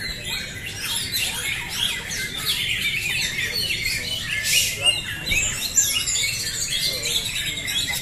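Many caged songbirds, the contest's green leafbirds (cocak hijau), singing at once in a dense, continuous chorus of overlapping chirps, whistles and squawks.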